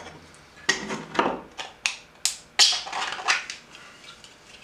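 3D-printed plastic rods being pushed and twisted into tight-fitting holes in a 3D-printed plastic mold: a quick series of sharp plastic clicks and short scrapes over the first three seconds or so.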